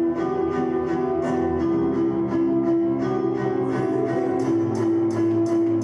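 A fighter's walkout music with a steady beat of high percussion strikes, about three a second.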